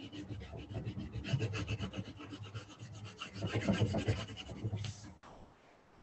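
Colored pencil scratching on sketchbook paper in quick back-and-forth shading strokes; it stops suddenly about five seconds in.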